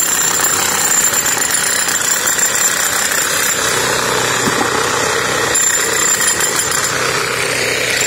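Corded electric demolition hammer chipping concrete, its chisel hammering in a steady rapid stream.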